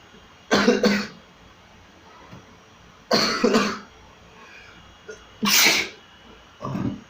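A person sneezing over and over: four loud, short bursts a second or two apart, the first two with a double peak.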